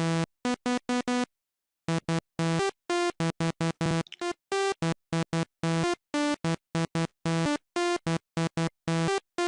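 Sylenth1 software synthesizer playing a fast melody of short, buzzy staccato notes at changing pitches, with a brief pause about a second in. The lead patch is still at an early stage, before its filter is set.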